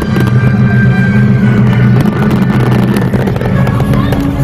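Fireworks bursting and crackling in quick, irregular pops over a loud, steady low drone.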